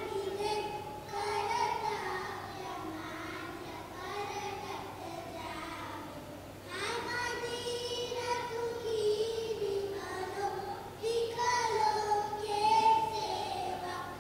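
Group of children singing together in unison, a slow melody of held notes sung in phrases a few seconds long.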